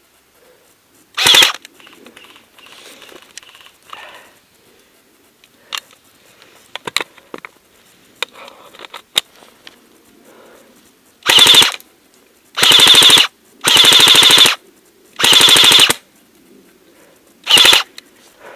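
Airsoft AKS-74U electric gun firing full-auto bursts. One short burst comes about a second in, then five more in quick succession over the last seven seconds, each under a second long. Faint clicks and rustling lie between the bursts.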